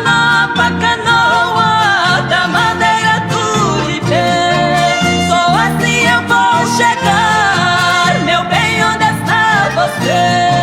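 Upbeat music with a steady bass beat and a sung or played melody.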